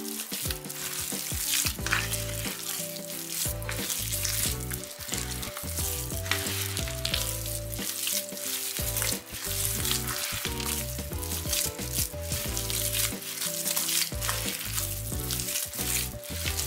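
Hands kneading a wet bulgur and pepper-paste çiğ köfte mixture in a metal pan: a continuous crackly squishing and squeezing as the mass is pressed over and over. Background music plays underneath.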